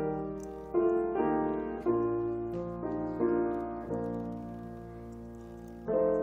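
Piano playing slow chords, each struck and left to ring and fade before the next.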